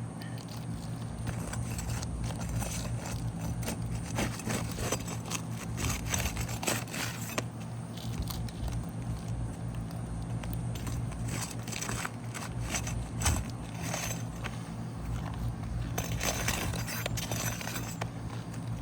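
Irregular scraping, cracking and knocking of a roofing tool prying a wind-damaged 3-tab asphalt shingle loose, breaking its sealant bond, over a steady low hum.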